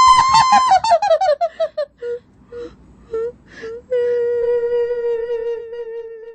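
A high-pitched ghostly voice wailing: a quavering cry that falls in pitch, a few short sobbing notes, then one long held moan from about four seconds in that fades out.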